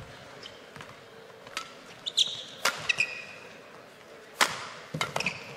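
Badminton rally: sharp racket-on-shuttlecock hits every second or two, the loudest about four and a half seconds in, with court shoes squeaking briefly on the court mat in between.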